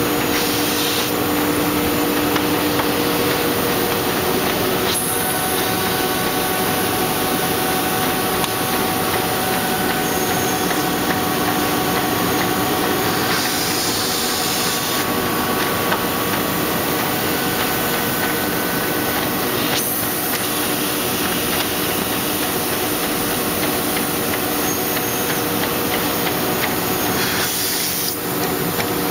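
Envelope folding and gluing machine running steadily: a dense, even mechanical clatter of rollers and drums with a steady hum, broken by brief hissing a few times.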